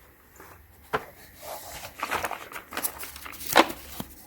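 Handling noises: a few sharp clicks and knocks with rustling between them, the loudest click about three and a half seconds in.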